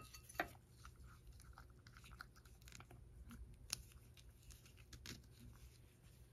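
Domestic cat chewing dry cat food, faint irregular crunches and clicks with a couple of sharper ticks.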